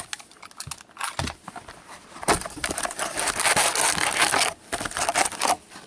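A sealed trading card box being cut open with a box cutter and its lid and packs handled: a few clicks, then a dense stretch of crinkling and crackling of wrapper and cardboard from about two to four and a half seconds in.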